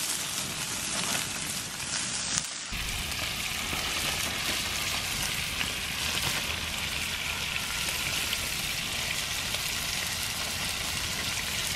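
Venison and chopped deer liver frying in oil in skillets over a wood fire: a steady sizzle.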